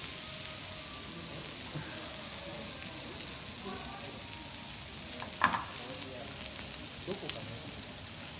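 Block of wagyu beef searing on a steel teppanyaki griddle, a steady sizzle of fat and juices. A single short, sharp sound stands out about five and a half seconds in.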